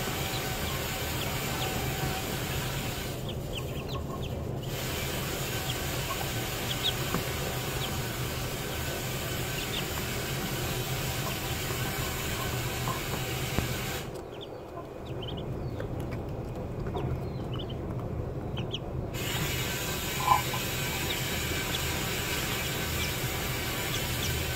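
A brood of Muscovy ducklings peeping: many short, high peeps scattered throughout, with one louder call about 20 seconds in, over a steady hiss and low hum.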